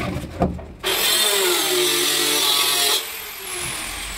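A knock, then an electric power tool switched on about a second in, its motor whining up to speed and running loudly. It is switched off about three seconds in and winds down with a steadily falling whine.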